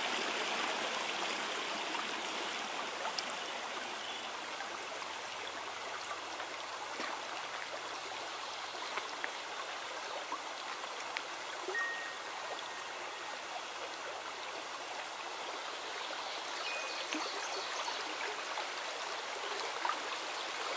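Shallow stream running steadily over rocks, an even water noise.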